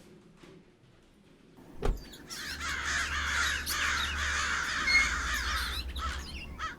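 A knock, then a flock of crows cawing all at once in a dense, overlapping mass over a low steady hum, breaking off near the end.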